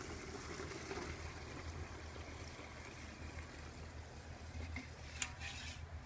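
Thick, foamy liquid soap pouring from a metal pot through a steel mesh strainer into a plastic bucket, a faint steady trickle. A single sharp click about five seconds in.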